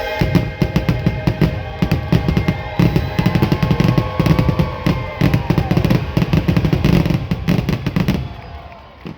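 A rapid finale barrage of fireworks going off, several bangs a second over the show's music, with a few whistling tones gliding up and down. The barrage dies away near the end.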